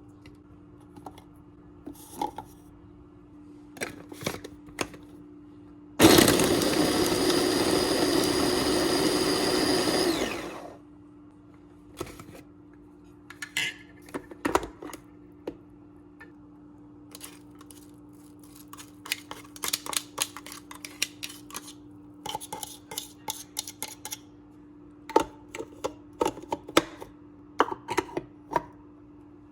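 A small electric food processor runs in one burst of about four and a half seconds, starting abruptly about six seconds in and winding down as it is switched off. Before and after it come scattered clicks and knocks of kitchen handling.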